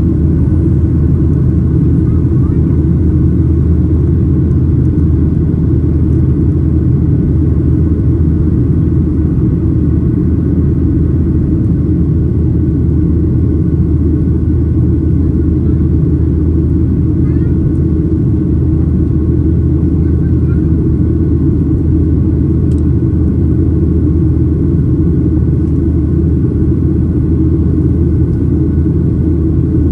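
Steady cabin rumble inside a Boeing 737-900ER: its CFM56-7B engines and the airflow heard from a window seat, loud and even, with a faint steady whine above it.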